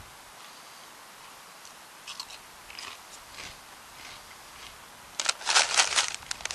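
Kettle-cooked potato chips being chewed close to the microphone: a few faint crunches, then a loud burst of rapid crunching starting about five seconds in.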